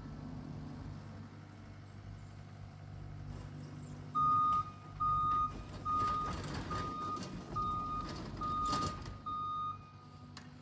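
The diesel engine of the power-raking machine running steadily. About four seconds in, its backup alarm starts beeping as it reverses: seven short, even beeps at one pitch, then it stops.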